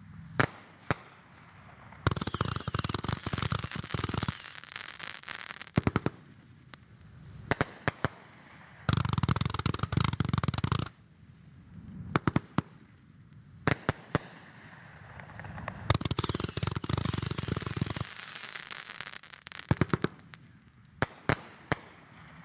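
Consumer aerial fireworks going off: sharp single bangs of shots and bursts, and three times a loud hissing stretch of two to three seconds with quick high whistling glides in it.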